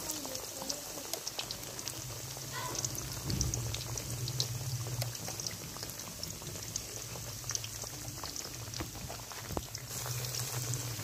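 Cornflour-coated potato slices deep-frying in hot oil in a wok, sizzling with many small crackling pops.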